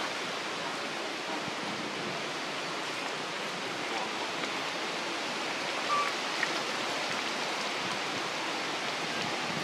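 Steady outdoor background hiss with no distinct source, with a faint short chirp about six seconds in.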